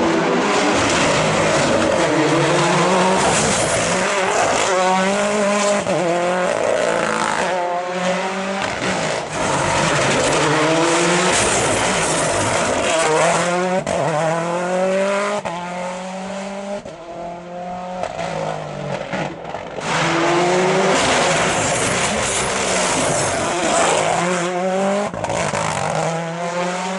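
Mini RRC rally car's turbocharged four-cylinder engine at full throttle, its pitch climbing and dropping again and again as it shifts up, brakes and accelerates out of tight bends. It fades for a couple of seconds past the middle, then comes back loud.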